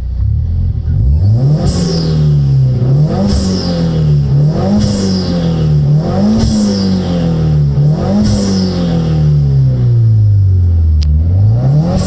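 Subaru WRX's 2.0-litre turbocharged flat-four revving up and back down about five times. Each time the throttle closes, the TiAL QRJ fully recirculating bypass valve vents with a short falling whoosh, and one more rev starts near the end.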